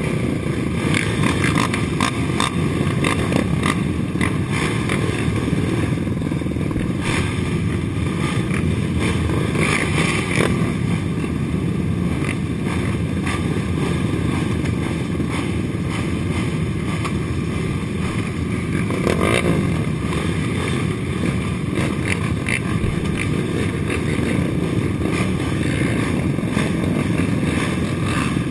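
Racing ATV engines idling together: the rider's own Suzuki LT-R450 and the many race quads lined up around it, a steady low engine rumble.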